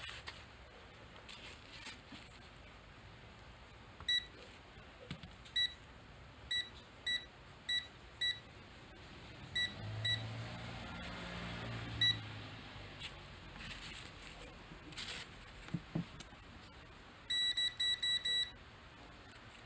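AstroAI DM6000AR digital multimeter's continuity beeper sounding short beeps as the test probes touch the power plug's pins and wire ends, about a dozen spaced beeps and then a quick run of beeps near the end. Each beep signals an unbroken conductor. A faint low hum is heard around the middle.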